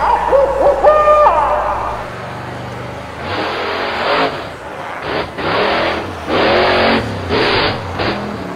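Cartoon monster truck engine sound effect, revving in a series of short bursts with tyre-skid noise from about three seconds in. Before it comes a brief sound effect with gliding pitch.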